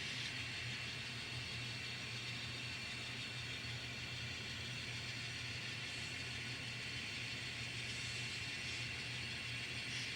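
N scale model train running steadily along the layout track: an even low hum with a faint hiss above it.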